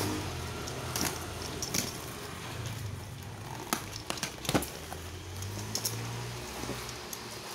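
Box cutter slicing through packing tape and cardboard, and the cardboard flaps being torn and pulled open. There are irregular scrapes and crinkling with a few sharp clicks.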